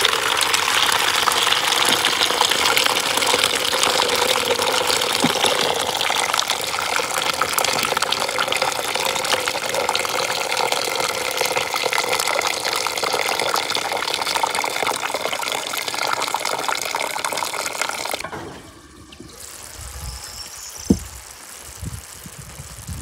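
Water poured in a steady stream from a stainless steel pot into a plastic bucket, splashing continuously: draining the cooking water off boiled cauliflower. The pouring stops abruptly about 18 seconds in, leaving quieter background with a single knock a few seconds later.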